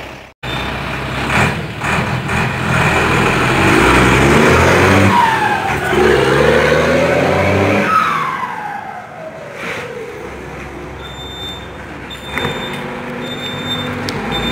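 Mercedes-Benz 1721 bus's turbo-diesel engine pulling away and revving up through the gears, its turbocharger, fitted with a 'pente' whistle modification, giving a whistle that falls in pitch each time the revs drop. It rises twice, then fades after about eight seconds as the bus moves off.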